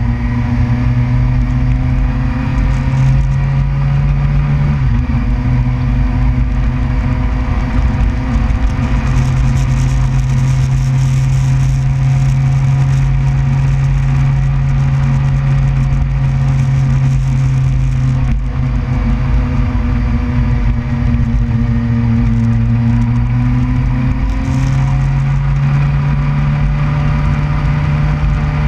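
Suzuki GSX-R 600 inline-four engine running at steady riding revs, with wind and road noise. The engine note shifts slightly in pitch about five seconds in and again near the end.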